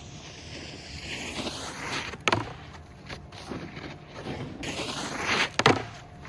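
Snowboard sliding and scraping over snow in swells, with two sharp knocks, one about two seconds in and a louder one near the end.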